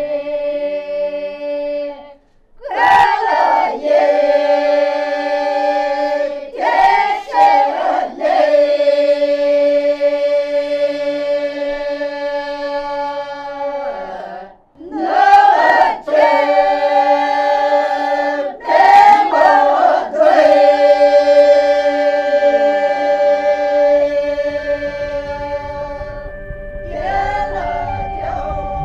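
Lisu folk song sung unaccompanied by a group of voices in several parts at once, in long held notes, with short breaks between phrases.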